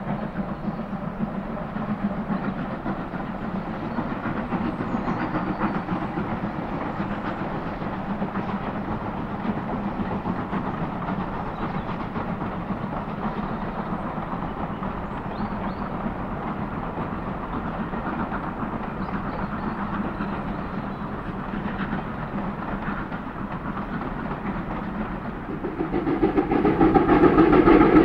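USATC S160 steam locomotives hauling a train of coaches past: a steady rumble of exhaust and wheels on rail. About two seconds before the end a louder, nearer locomotive sound with a steady tone comes in.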